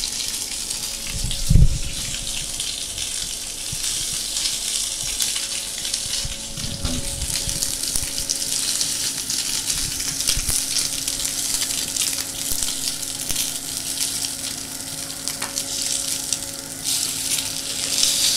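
Zander fillet sizzling on a hot ridged grill pan over a gas burner, a steady hiss that grows louder near the end. A single dull thump about a second and a half in.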